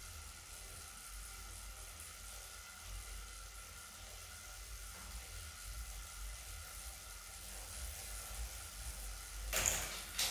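Wahoo KICKR Core direct-drive smart trainer spinning under a pedalling rider together with the bike's chain drivetrain: a super quiet, steady hiss and whir with a faint steady whine, still as quiet as new after 200 hours of use. Near the end a brief louder rush of noise.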